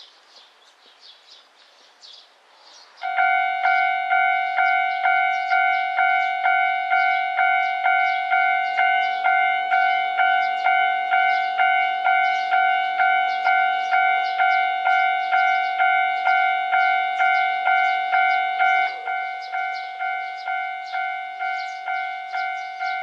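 Level-crossing warning bell starting about three seconds in, ringing in repeated strikes about twice a second. It drops to a lower volume about sixteen seconds in and keeps ringing.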